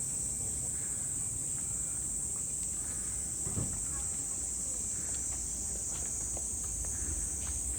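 Summer insects in the trees giving a steady, high-pitched buzzing drone without a break, with faint footsteps and a single dull knock a little after the midpoint.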